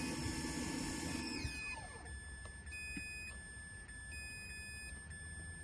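A whirring motor runs and winds down with a falling pitch about a second and a half in. It is followed by two short, steady beeps from a multimeter on continuity test. Each beep shows that the fuse across its probes is intact, not blown.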